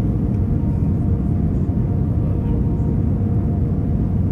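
Steady low rumble of an Airbus A321neo LR's cabin in the climb after takeoff: engine and airflow noise heard through the fuselage. A faint, even hum of engine tones sits over it.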